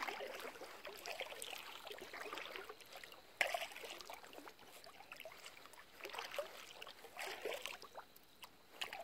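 Kayak paddle strokes in water: splashes and drips from a double-bladed paddle, coming in irregular bursts, with a sharper splash about three and a half seconds in.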